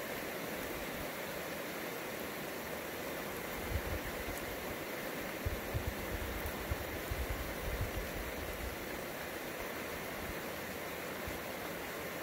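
Steady hiss of rain during a night thunderstorm, with low rumbles of distant thunder about four seconds in and again, rolling irregularly, from about five and a half to eight and a half seconds.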